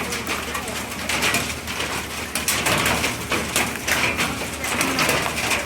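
Heavy hail, nickel to quarter size, pelting hard surfaces: a dense, irregular patter of sharp impacts over the steady hiss of a downpour.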